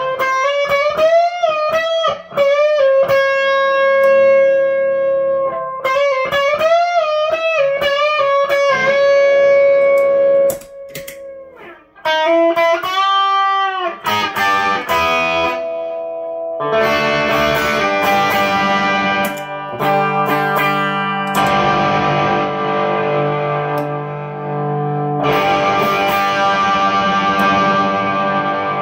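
Electric guitar, a single-coil Stratocaster through a Fender Twin Reverb, playing sustained single notes with bends and vibrato, then, about halfway through, switching to thick distorted chords through an effects pedal.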